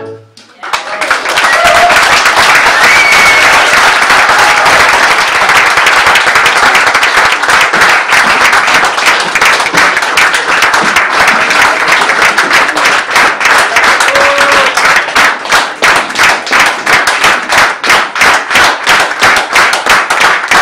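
An audience applauding, starting about a second in as the tango music falls silent. In the second half the applause settles into rhythmic clapping in unison, about two claps a second.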